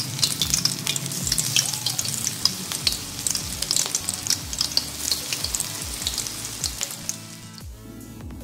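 Toor dana (pigeon pea) patties deep-frying in hot oil in a wok: a steady sizzle with dense, rapid crackling pops.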